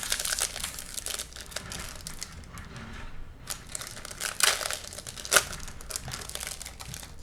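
A foil trading-card pack wrapper being torn open and crinkled by hand, with a steady crackle and a few sharper rips and crunches partway through.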